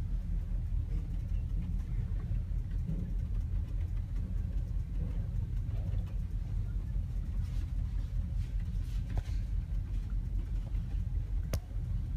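Boat's engines heard on board as a steady low rumble, with a short sharp click near the end.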